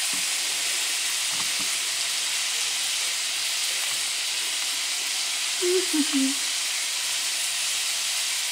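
Butter melting and sizzling in a wide metal pan on a gas burner: a steady frying hiss. A brief low sound cuts in a little past the middle.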